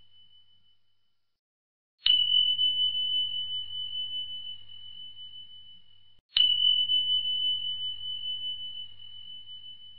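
A high, bell-like ding struck twice about four seconds apart, each ringing on one pitch and fading slowly with a slight waver. The tail of an earlier ding dies away in the first second.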